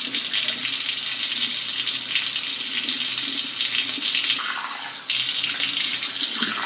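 Bathroom sink tap running into the basin while a face is washed and rinsed by hand, with a brief lull in the splashing about four and a half seconds in.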